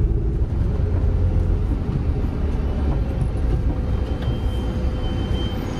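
Cabin noise inside a Mercedes-Benz Sprinter motorhome driving slowly over a corrugated dirt road: a steady low rumble with rattling and shaking of the van body.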